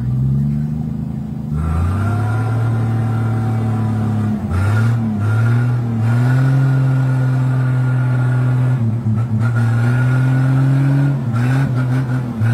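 A motor vehicle's engine working hard through mud, running at a steady pitch that dips and climbs again a few times.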